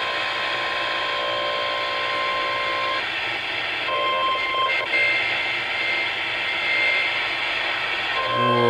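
Unexplained interference coming through a CB radio's speaker on the 40-channel AM band: several steady electronic tones over static hiss. The tones break off about three seconds in and come back, then waver near the end.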